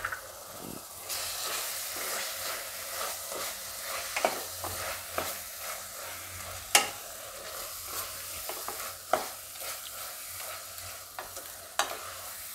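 A spinach, tomato and coriander mixture sizzling in a wok as it is stirred with a spatula. The sizzle widens about a second in, and the spatula scrapes and gives several sharp knocks against the pan.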